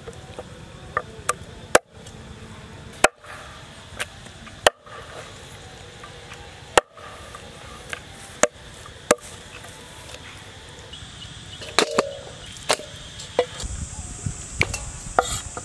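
Steel meat cleaver chopping through raw rat carcasses onto a wooden cutting board: about a dozen sharp single strikes, irregularly spaced a second or two apart.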